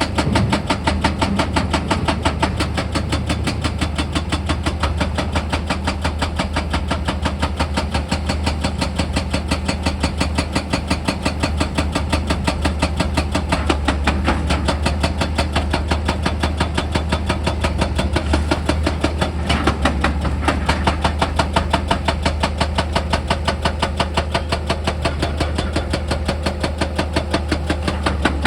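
Heavy diesel machinery running steadily under a rapid, even mechanical hammering of several strikes a second, typical of a hydraulic percussion hammer working rock.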